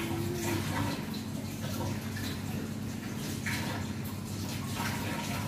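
A steady low background hum, with a few soft, brief rustles of rice paper and fingers on a metal tray as a spring roll is rolled by hand.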